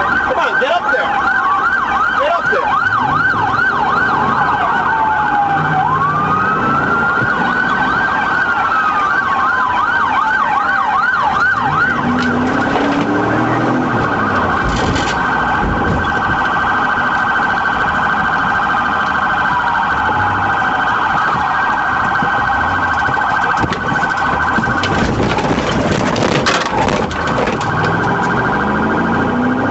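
Police car sirens sounding over road noise, switching between a fast yelp of about two to three pitch sweeps a second and a slow rising-and-falling wail, with the two overlapping at times. There are a few brief knocks near the end.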